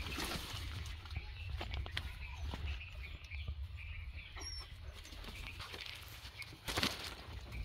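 Rustling and crackling in leafy undergrowth and dry leaf litter, scattered short clicks over a steady low wind rumble on the microphone, with a louder rustle near the end and a faint short bird chirp about midway.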